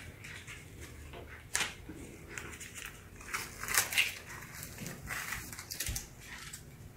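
Faint rustling of a disposable sanitary pad and its wrapper being handled, unfolded and smoothed flat on a towel, with a few short crinkles standing out.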